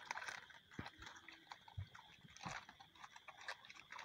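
Live climbing perch (koi fish) wriggling and flapping against each other in a plastic basket: faint, irregular wet taps, slaps and crackles, with a few heavier knocks.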